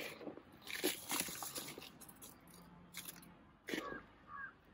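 Crunching and rustling of dry soil and powdered cow dung being worked by hand in a plastic grow bag, in a few short bursts.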